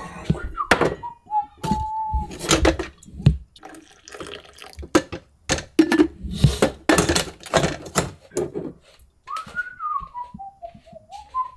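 Coffee poured from a glass carafe into a glass cup, with repeated clinks and knocks of the glassware being handled. A short wavering whistle about a second in and again near the end.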